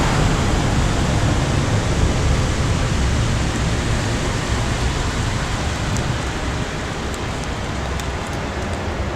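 Synthetic nuclear explosion sound effect, stretched in Audacity with Paulstretch: a long, dense roar with a deep rumble that dies away slowly, with a few faint crackles late on.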